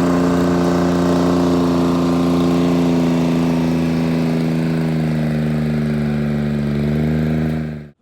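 Timberjack 225D skidder's Detroit Diesel 3-53 two-stroke diesel engine running steadily, its pitch easing slightly down in the second half, then cutting off abruptly near the end.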